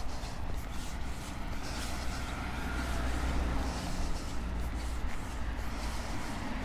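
Cars passing on the street alongside, a steady rumble of engines and tyres.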